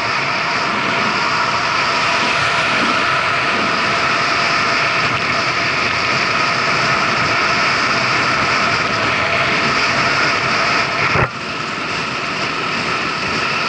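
Kymco Agility City 125 scooter's single-cylinder engine running under way while the scooter picks up speed, mixed with steady wind rush over the mounted action camera. A single sharp knock comes about eleven seconds in.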